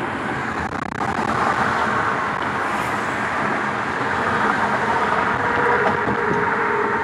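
Steady road and tyre noise of a moving taxi crossing a bridge, heard from inside the cab; it grows a little louder about a second in. A faint steady hum joins about halfway through.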